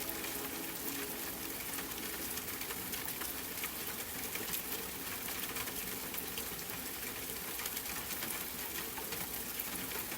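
Steady rain falling, a dense hiss with many small, sharp drop ticks throughout.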